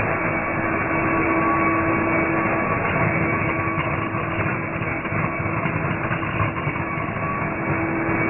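Colour sorting machine running as plastic flakes pour through its feeder and chute. It makes a steady, dense mechanical din with a faint steady hum in it.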